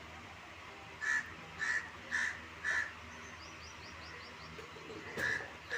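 A bird calling: four short calls about half a second apart, then two more near the end, with faint quick high chirps from a smaller bird in between.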